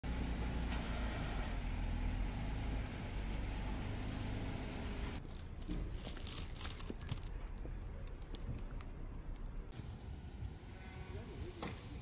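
Wind noise on the microphone outdoors for about five seconds, then a quieter stretch with a run of light clicks and rustles, as of bags being handled in a loaded car trunk.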